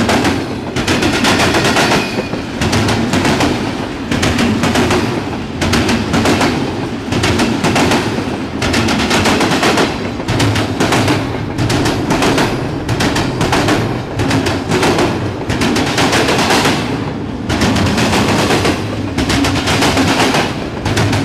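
Norfolk Southern intermodal freight train rolling past close by, its car wheels clattering over the rail joints in quick clusters of sharp clicks that swell every second or two.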